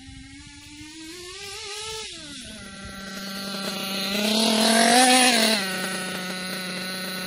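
Kyosho KE25 nitro engine in an RC truggy revving on a three-quarter-throttle break-in pass, dropping back a little after two seconds, then revving up again to its loudest about five seconds in as the car comes close, and settling to a steady idle near the end.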